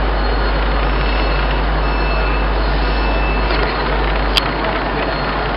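Steady rumble and hiss of a railway station platform, with a single sharp click about four seconds in.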